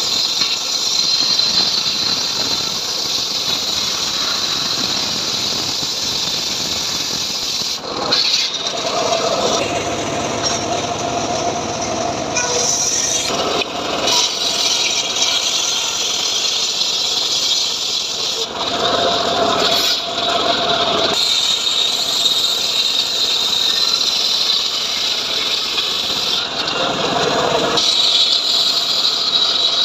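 Homemade log sawmill running steadily with a high-pitched whine while its blade saws sengon wood. Several louder cutting stretches of a few seconds each come and go.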